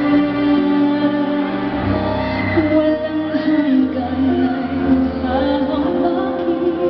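A woman singing live into a microphone, holding long notes, with a live band accompanying her.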